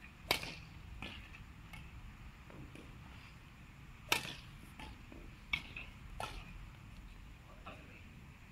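Badminton rackets striking a shuttlecock in a rally: sharp pocks, with a quick run of four about 0.7 s apart starting about four seconds in, over a low steady background hum.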